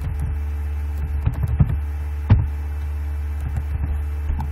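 Computer keyboard keys tapped in short irregular runs, with one sharper key click a little past halfway, over a steady low electrical hum.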